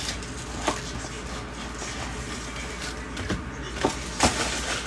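Foil trading-card packs and a cardboard box being handled: scattered crinkles and taps over a steady low hiss, with a few sharper ones, the loudest about four seconds in.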